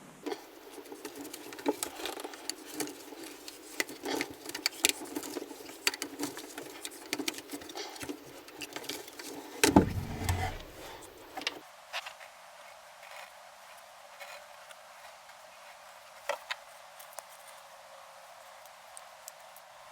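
Scattered clicks, taps and knocks of tools and parts being handled during garbage disposal installation work, with one heavier thump about ten seconds in; the clicks thin out after about twelve seconds.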